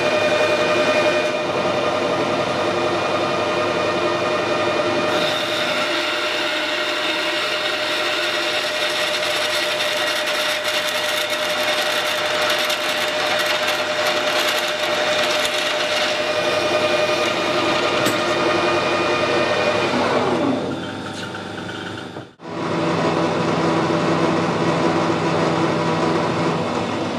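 Metal lathe running with a steady whine while a twist drill in the tailstock bores into the end of a tough steel shock-absorber rod. About 20 seconds in, the pitch falls as the spindle winds down. After a break, the lathe runs steadily again with a lower hum.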